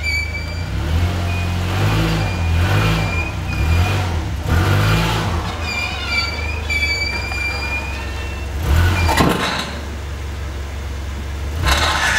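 Volvo 940's B230FT turbocharged four-cylinder engine running through an already broken exhaust as the car creeps up a steep ramp, the throttle rising and falling over the first few seconds. Two short harsh scraping noises, about nine seconds in and near the end, as the underside scrapes on the incline.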